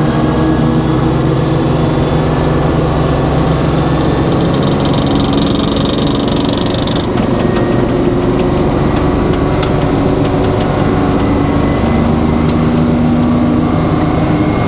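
Sawmill's engine running steadily, with a higher hiss joining for about two seconds around five seconds in.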